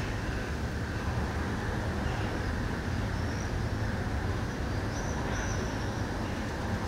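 Steady low outdoor background rumble, like distant city traffic, with a few faint high chirps about three and five seconds in.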